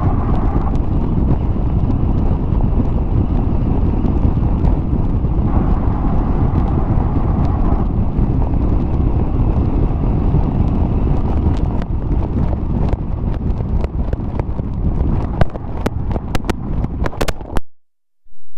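The side exhaust of a 2011 Mercedes-Benz G55 AMG's supercharged V8 at steady highway cruise, heard through heavy wind rushing over an outside-mounted microphone. From about twelve seconds in, sharp clicks and pops come more and more often, and the sound cuts off suddenly near the end.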